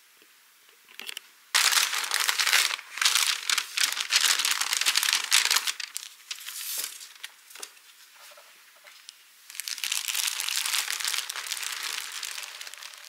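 Tissue paper and a clear plastic garment bag crinkling as they are unwrapped by hand, in two long bouts with scattered quieter rustles between.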